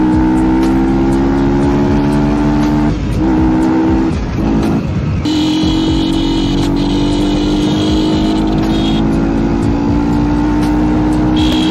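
Yamaha R15's single-cylinder engine with a loud exhaust, ridden hard: the note climbs steadily, dips briefly twice about three and four to five seconds in, then climbs again.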